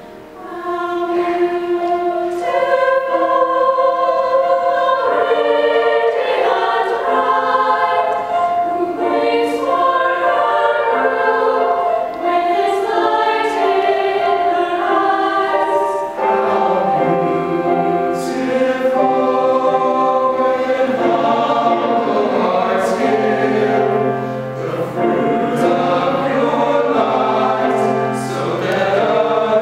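Mixed choir of men's and women's voices singing a slow sacred song in parts. The lower voices come in more strongly about halfway through.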